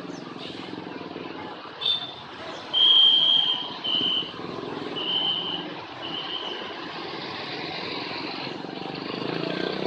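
A bus's engine running, with four short high-pitched tones in the middle, the first the longest and loudest.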